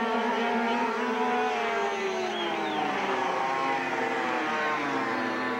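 Several 50cc two-stroke speedway motorcycles racing together, their high engine notes overlapping, with pitches that fall and rise as the riders throttle through a bend.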